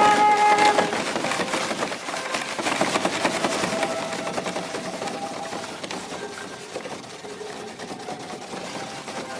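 Flute, viola and harp trio playing contemporary chamber music. A held pitched tone stops about a second in and gives way to a dense patter of rapid clicking and rustling noise, with faint held notes underneath, slowly growing quieter.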